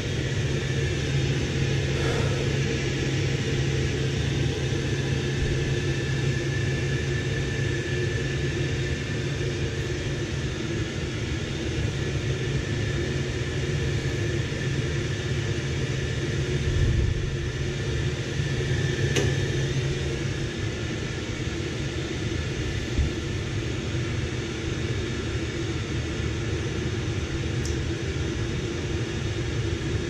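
Steady hum of a hydronic snowmelt system's boiler room in operation: Munchkin gas boilers firing and circulator pumps running. The low part of the hum drops away about twenty seconds in, just after a faint click.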